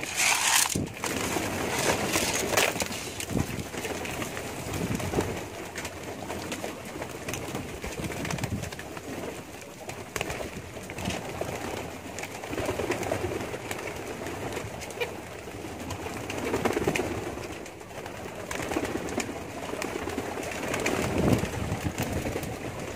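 A flock of domestic pigeons cooing continually, low overlapping coos, with scattered clicks and a brief rustling burst just after the start.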